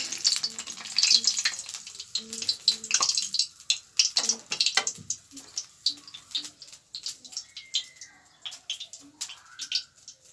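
Hot mustard oil crackling and spitting in a kadhai on a gas stove, with irregular sharp crackles that thin out toward the end as the oil is still coming up to temperature.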